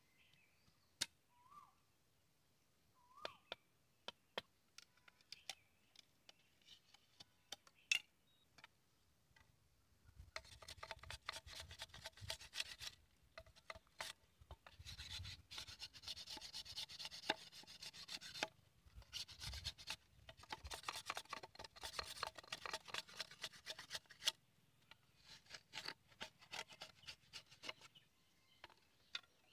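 Sickle blade shaving and scraping along a green bamboo strip in quick repeated strokes, with many small clicks. After a few scattered taps, the scraping starts about ten seconds in, pauses briefly, and comes back in a last spell near the end.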